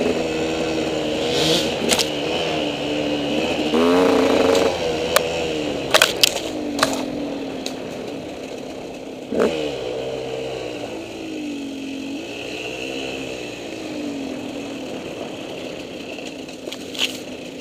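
KTM 200 EXC two-stroke single-cylinder dirt bike engine revving up and down under the rider's throttle on tight singletrack, with a few sharp knocks from the bike over the trail. The bike is running a trashed expansion pipe.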